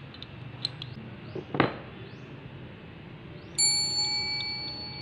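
Wrenches on the brass hose fitting of a hand air pump: a few light metal clicks, then one sharp clink about one and a half seconds in. Past the halfway mark a bright electronic bell-like ding from a subscribe-button animation rings out and slowly fades.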